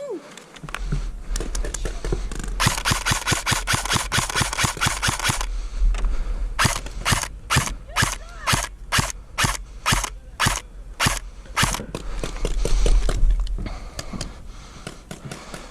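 ASG M15 airsoft electric gun (AEG) firing: a burst of about three seconds of rapid fire, then single shots at roughly two a second.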